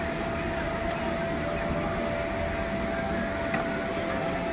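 Steady drone of an electric air blower keeping an inflatable bounce-house slide inflated, with a constant hum and low rumble. Two faint clicks, about a second in and near the end.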